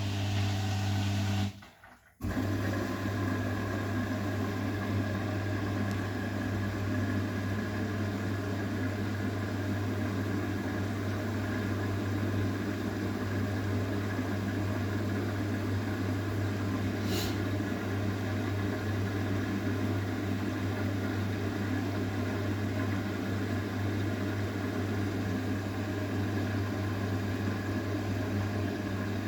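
Arçelik 9120M front-loading washing machine running early in a cotton 60 °C wash with prewash: a steady low hum with an even rushing noise over it. The sound cuts out briefly about two seconds in.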